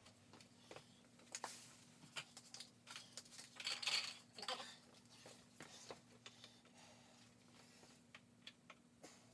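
Small plastic pin targets being handled and stood back up on plastic shelving: scattered light clicks and knocks, with a louder rustle about four seconds in, over a faint steady hum.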